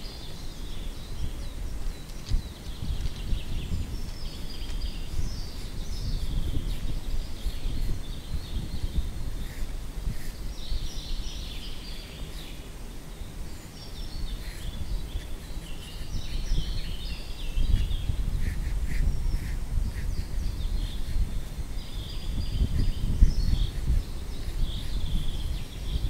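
Wind gusting across the microphone as a low, rumbling buffet that swells and eases, with small birds chirping and trilling over it.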